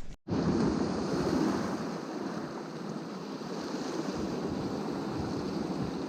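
Small sea waves washing onto the shore: a steady rush of surf that begins abruptly just after the start.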